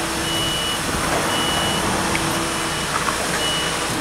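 Gimaex aerial ladder fire engine's warning beeper sounding a high beep about once a second, over the truck's engine running.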